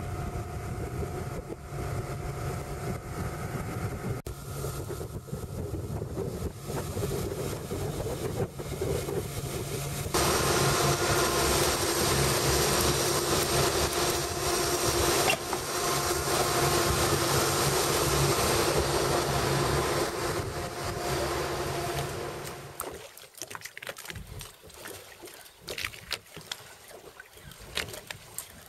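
Boat's outboard motor running steadily under way, with wind and water hiss. It grows louder about a third of the way through, then drops away about three-quarters through, leaving quieter wind and water sounds with scattered clicks.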